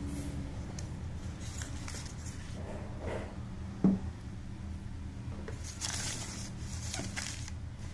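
Crinkly tissue paper rustling as a hand lifts and handles the wrapping in a cardboard shoebox, heaviest in the second half, with a single knock about four seconds in. A steady low hum runs underneath.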